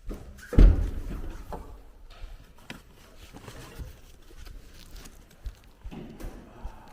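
A heavy thump about half a second in, followed by scattered light knocks and clicks of things being handled.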